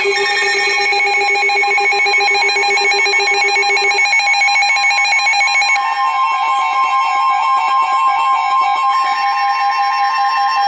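Several NOAA weather radios sounding their alert alarms together: a loud mix of steady and rapidly pulsing electronic tones. About four seconds in a lower tone drops out and a higher one takes over. The alarm signals a severe thunderstorm warning.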